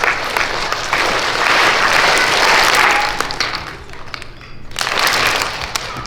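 A crowd of young children clapping together. The applause swells, fades, then comes back briefly in a second, shorter burst near the end.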